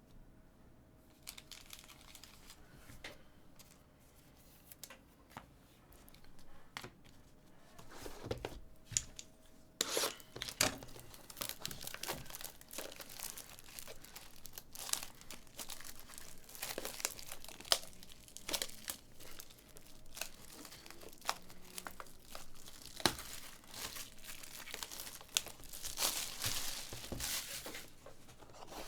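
Trading card pack wrappers being torn open and crinkled, with small clicks of cards and packaging being handled. Only scattered clicks for the first several seconds, then steady crinkling from about ten seconds in.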